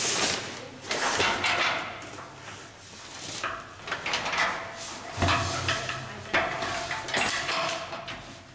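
An African elephant working a wooden kerplunk enrichment feeder: irregular scraping, rustling and a few sharp knocks, with quiet voices in the background.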